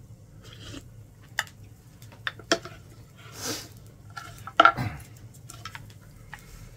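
Aluminium pot of udon knocking on a wooden cutting board as it is set down and lifted, with chopsticks clinking and scraping against the pot as the noodles are stirred: a few sharp knocks, the loudest about two-thirds of the way through.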